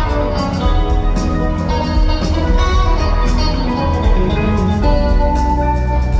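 Live rock band playing an instrumental jam: several electric guitars, bass, drums and keyboards, heard loud and continuous in a concert hall.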